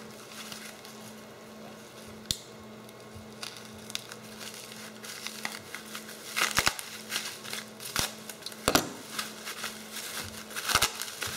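Bubble wrap and plastic packaging crinkling and crackling in irregular bursts as parts are unwrapped by hand, with the loudest bursts about two thirds of the way in and near the end. A steady low hum runs underneath.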